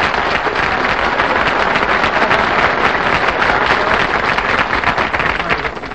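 Studio audience applauding, a dense steady clatter of many hands clapping that starts to die down near the end.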